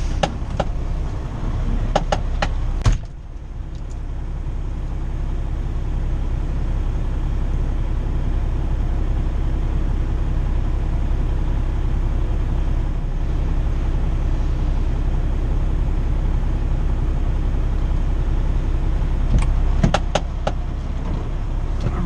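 Semi truck's diesel engine idling steadily, heard from inside the cab, with a few sharp clicks and knocks in the first three seconds and again near the end.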